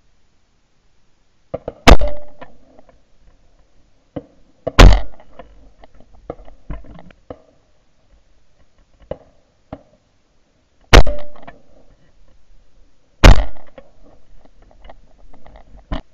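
Four shotgun shots fired with 36 g No. 1 steel cartridges, very loud and close, in two pairs about three and about two seconds apart, each crack dying away over about half a second. Fainter sharp cracks sound in between.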